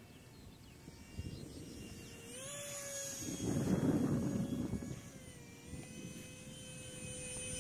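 Thin whine of a 30 mm electric ducted fan on a small RC BAe Hawk model jet in flight, rising in pitch a little past two seconds in and then holding steady. A low rush of wind on the microphone swells and fades around the middle.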